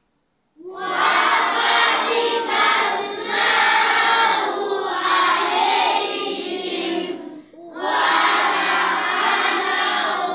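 A large group of boys chanting loudly together in unison, reciting in a Quranic school. The chanting starts suddenly about half a second in, breaks briefly about seven and a half seconds in, and then resumes.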